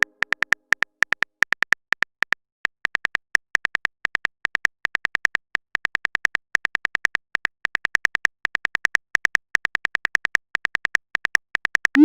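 Text-scroll blip sound effect: short, high electronic beeps all on one pitch, repeating fast in bursts with brief pauses, as lines of text type out. A short rising boing comes right at the end.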